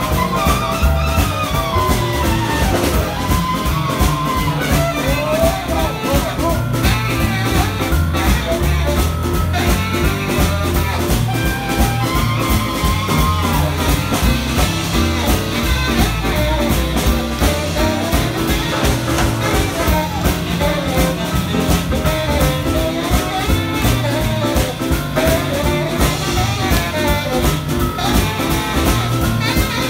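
Live swing jazz: saxophone solo over upright double bass, drum kit and piano, with a steady swinging beat during the song's instrumental break.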